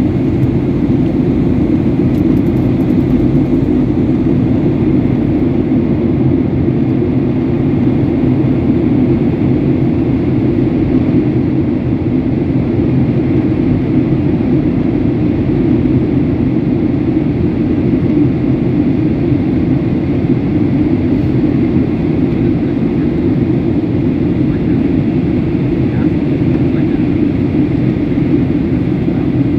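Steady in-flight cabin noise of a jet airliner: an even, low drone of engines and rushing airflow heard from inside the cabin, unchanging throughout.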